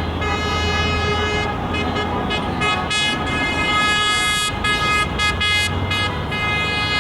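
Many car horns honking together in long, overlapping blasts with short irregular gaps, over the low hum of passing engines. This is the celebratory honking of a convoy of cars, which the onlookers take for a wedding.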